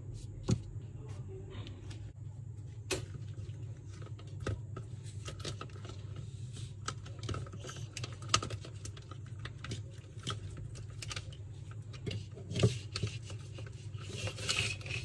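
Irregular light clicks and taps of hands and a small tool working on a 1/10-scale RC car's chassis and wiring, with a few sharper clicks, over a steady low hum.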